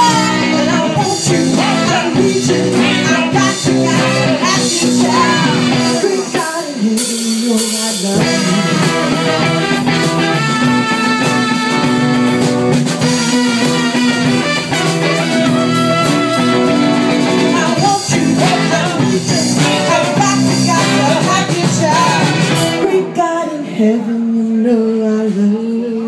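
Live band playing: a woman singing over electric guitars, bass, drums, saxophone and trumpet. A few seconds before the end the band stops and voices take over.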